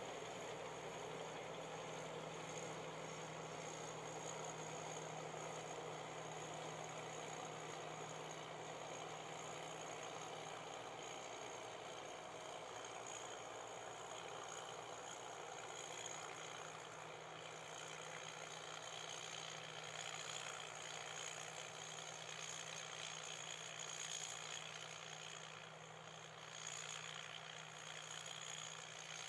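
Tracked combine harvester's engine running steadily under load as it cuts and threshes the crop, a constant hum with machinery noise over it.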